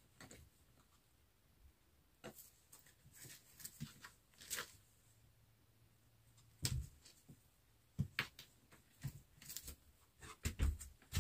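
Irregular light taps, scuffs and soft knocks, sparse at first and busier in the second half.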